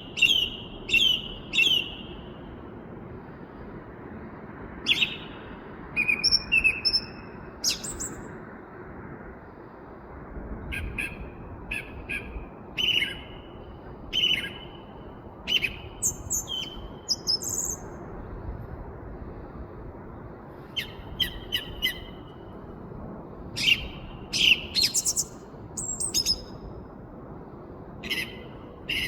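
Song thrush singing: short, loud, varied phrases, several repeated two or three times in a row, with pauses between, over a steady low background rumble.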